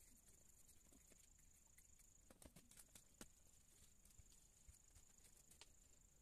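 Near silence: faint ticks of a graphite pencil tapping and stroking on paper, a few of them between about two and three and a half seconds in, over a steady high-pitched whine.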